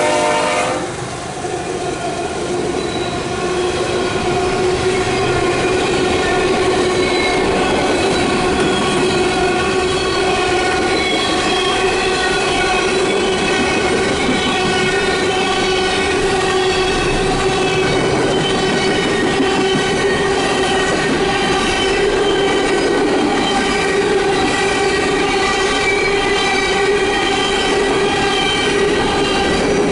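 CSX empty coal train passing: a horn blast cuts off about a second in, then the steady run of the cars over the rails, with a steady whine over it.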